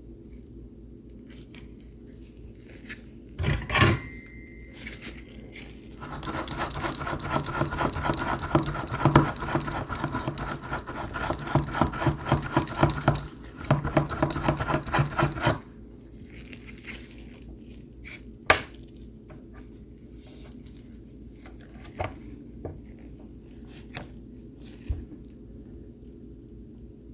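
Small metal tool scraping and clicking rapidly on a circuit board for about ten seconds, with a short clatter before it and a few single clicks after, over a steady low hum.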